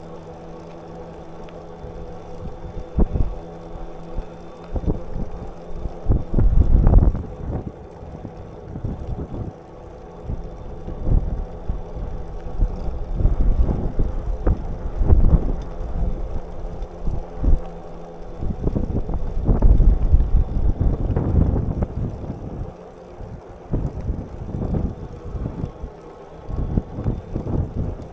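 Wind buffeting the microphone of a camera on a moving bicycle, swelling and dropping in gusts, over a faint steady hum.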